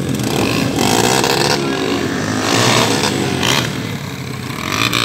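Trail motorcycle engines revving over and over, the pitch rising and falling. There are sharp blips of throttle about a second in, again around two and a half seconds, and once more a little later.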